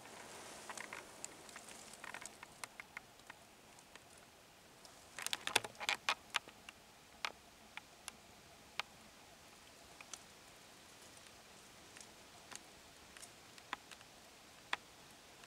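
Faint, sparse clicks and crackles, with a denser cluster of them about five to six seconds in.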